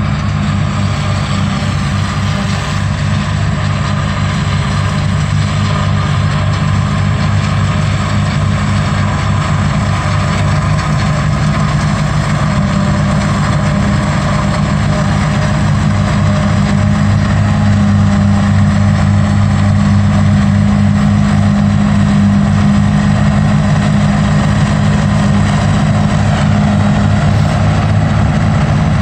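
New Holland 2100 self-propelled forage harvester running under load as it chops sorghum: a steady, loud diesel drone that grows a little louder about halfway through as the machine comes closer.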